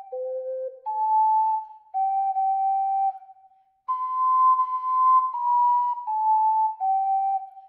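Solo ocarina in C playing a slow melody in clear, pure, held notes. A short breath pause comes about three and a half seconds in, then a phrase steps downward from a high note.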